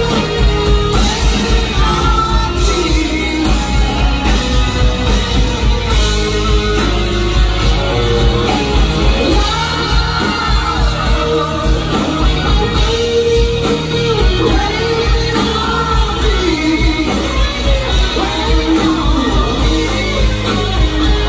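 Live rock band playing loudly with sung vocals over guitar, bass and drums, with a steady regular beat, heard from among the audience in the room.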